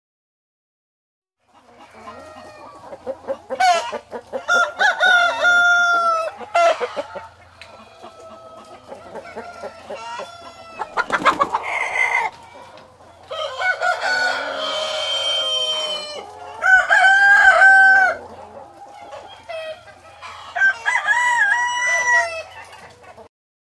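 Domestic roosters crowing several times, with chickens clucking between the crows, starting about a second and a half in.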